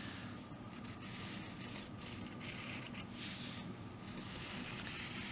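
Pencil tracing along a line on a paper template laid over plywood: scratchy strokes of the lead on paper, the longest and loudest about three seconds in, with a faint steady low hum behind.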